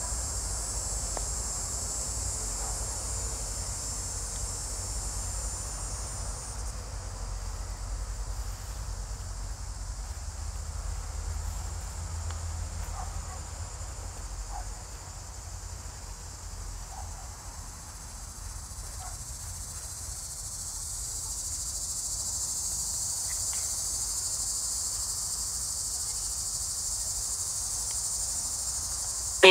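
Steady high-pitched insect chorus that drops back for a while after the first several seconds and swells again toward the end.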